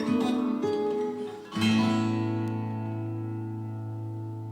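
Acoustic guitar playing the last notes of a song, then a final chord strummed about a second and a half in and left to ring out, slowly fading.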